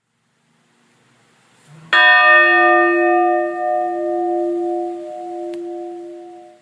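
A metal bell struck once, about two seconds in. It rings out in several steady tones; the high overtones fade quickly while the lower hum keeps ringing, with a gentle pulsing waver.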